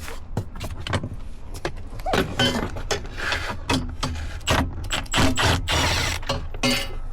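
Hand tools on metal: irregular clicks, knocks and rattles as the 10 mm bolts holding the steering column are worked loose.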